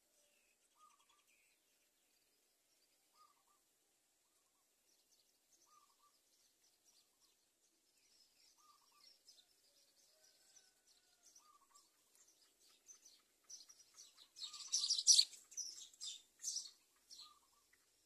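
High-pitched squeaky bird chirping that builds into a rapid, louder burst about three-quarters of the way through, typical of greater coucal nestlings begging at the nest. A soft short note repeats every two to three seconds beneath it.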